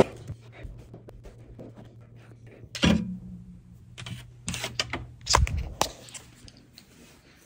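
Knocks, clicks and rustling of a phone camera being picked up and handled, with one loud thump about three seconds in that rings briefly, over a steady low hum.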